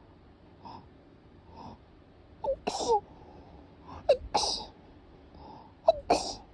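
A person sneezing three times in quick succession, about a second and a half to two seconds apart. Each sneeze is a short voiced catch followed by a hissing burst, and two faint quick intakes of breath come before the first.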